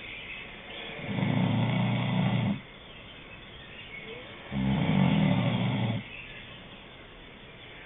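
A sleeper snoring: two low snores about three and a half seconds apart, each lasting about a second and a half, with a quieter hiss between them.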